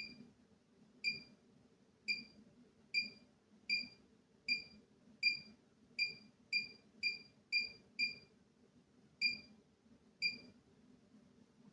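Bosch Serie 4 tumble dryer's control panel beeping at each button press: fourteen short, identical high beeps at uneven intervals, some in quick succession.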